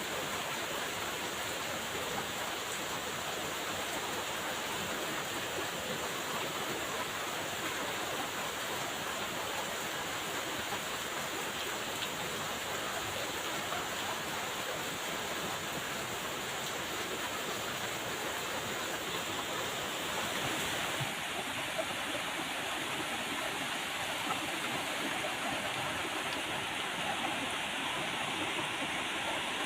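Steady rain falling, an even hiss with no breaks; the sound changes slightly about two-thirds of the way through, turning a little duller.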